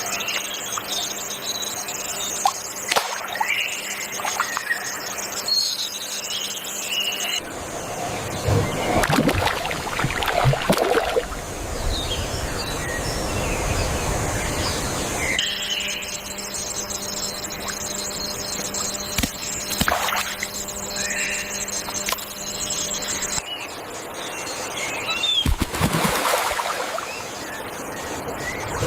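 Rainforest ambience: birds calling and a high insect drone, alternating with stretches of water-like rushing noise. The mix changes abruptly three times.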